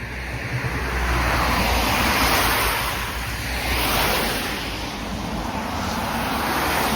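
Road traffic passing close by: vehicles going past one after another, their tyre and engine noise a rushing sound that swells and fades, with a low rumble underneath.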